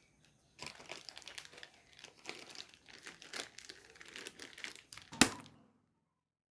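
Packaging crinkling and rustling as it is handled, with one loud sharp snap about five seconds in.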